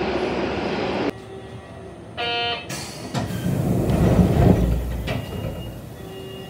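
Railway station noise: a steady rush on the platform that cuts off abruptly about a second in, then a short electronic beep and a low rumble that swells and fades in the station concourse.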